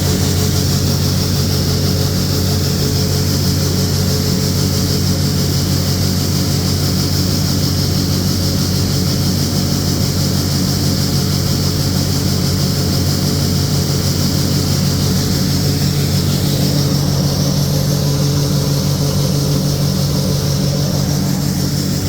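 Combine harvester running steadily in the corn, its engine giving a constant low hum under a steady high hiss.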